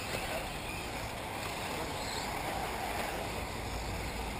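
Electric 1/8-scale RC off-road buggies whirring around a dirt track, heard faintly over a steady low rumble of wind and open-air noise, with a few brief rising and falling motor whines.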